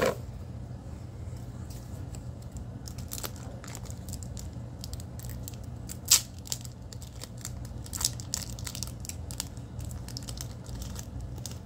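Foil Pokémon booster pack wrapper crinkling and tearing as it is opened by hand, in a run of small crackles with a sharper, louder crackle about six seconds in. A steady low hum runs underneath.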